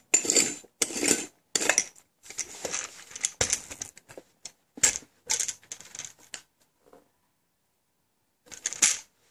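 Red lid being screwed onto the glass globe of a Jelly Belly mini jelly bean machine filled with jelly beans: a run of short rattling, scraping strokes. It goes quiet for about two seconds, then rattles once more near the end.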